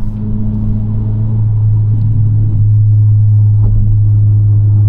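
Honda Civic Si droning steadily from inside the cabin, a low, even engine and road hum that grows slightly louder about halfway through.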